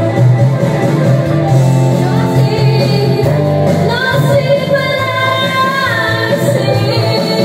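A woman singing karaoke into a handheld microphone over a loud karaoke backing track with a steady bass line. Her amplified voice comes in about two seconds in.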